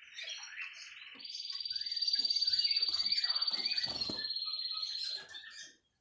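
Male red-factor canary singing: a rapid high trill that starts about a second in, steps slightly down in pitch near four seconds and stops just after five seconds, with a few soft knocks underneath.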